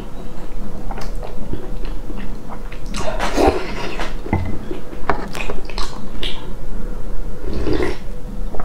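Close-up eating sounds from a bowl of noodle soup: chewing and lip-smacking clicks, with a few short slurps, one near the end as broth is slurped straight from the bowl.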